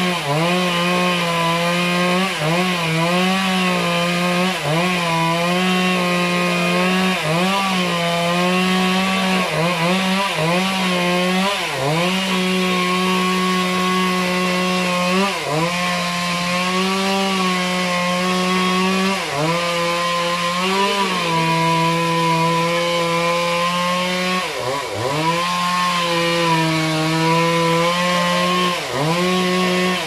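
Chainsaw cutting into the base of a tree trunk, running at high revs, its pitch dipping sharply and recovering again and again as the chain bogs down in the wood.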